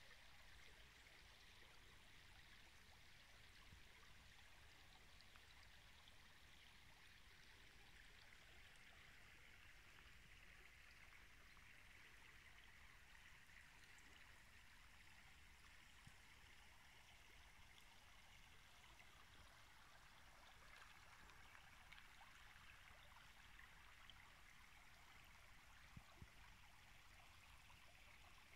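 Faint, steady burble of a shallow river flowing over stones, with a couple of small clicks near the end.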